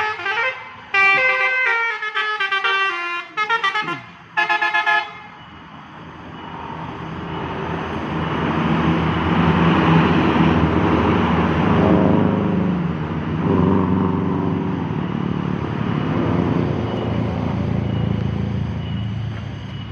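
Telolet bus horn playing a rapid multi-note tune in short bursts for about five seconds. Then a bus passing, its engine and road noise swelling to a peak around halfway and slowly fading away.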